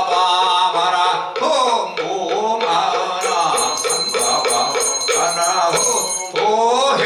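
Buddhist liturgical chanting: a monk's voice singing a slow, wavering melodic chant, with a handbell shaken in rapid, continuous ringing for a few seconds in the middle.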